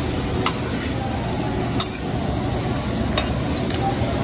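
Vegetables sizzling on a hot steel teppanyaki griddle, with three sharp clicks of the chef's metal utensils striking the griddle plate about every second and a half.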